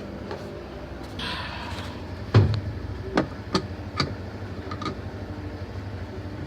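Screwdriver tightening the stainless screw that holds a washing machine's pulsator: a brief scrape, then a handful of sharp clicks spaced irregularly as the tool seats and turns, over a steady low hum.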